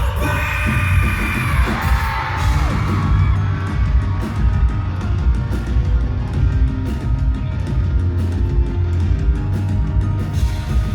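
Live rock band playing loudly with a heavy bass and drum low end, as the audience screams and cheers over the music in the first few seconds.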